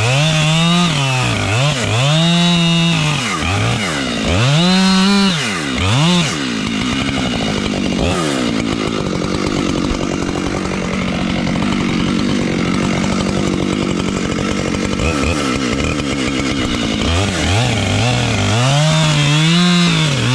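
Husqvarna 592XP two-stroke chainsaw revved in short bursts, its pitch rising and falling about once a second, then held steady for about ten seconds while cutting through wood, then revved in bursts again near the end.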